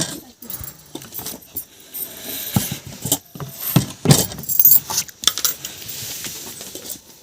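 Irregular clinks and knocks of small hard objects being handled.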